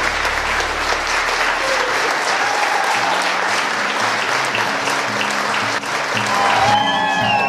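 Congregation applauding, with music of steady low notes coming in underneath about three seconds in. Near the end the clapping drops away, leaving the music.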